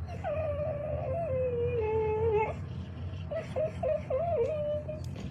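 An animal whining in long, wavering, drawn-out cries, then in shorter broken cries for the last couple of seconds.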